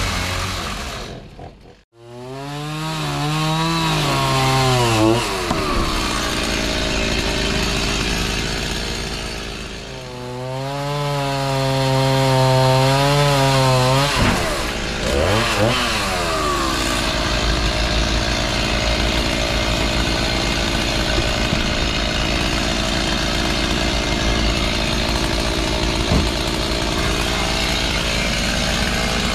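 Gasoline chainsaw running and cutting into wood, its engine pitch rising and falling as it is revved and loaded in the cut. The sound drops out abruptly about two seconds in, then the saw runs on steadily through the second half.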